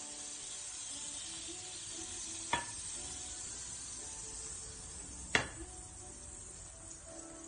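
Pancake batter sizzling in a frying pan, a steady hiss, with two sharp clinks of a utensil or dish about two and a half and five seconds in, the second louder.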